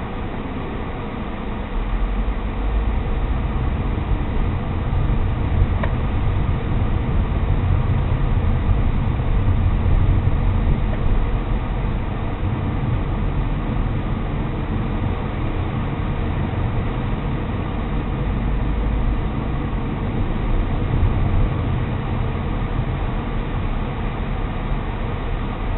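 Steady low rumble of a car driving, engine and tyre noise heard from inside the car, swelling and easing as the speed changes.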